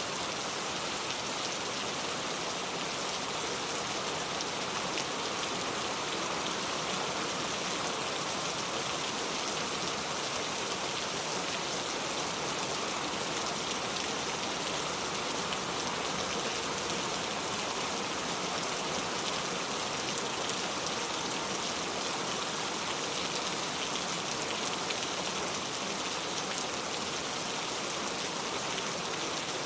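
Steady rain falling, a dense even hiss of many drops hitting surfaces.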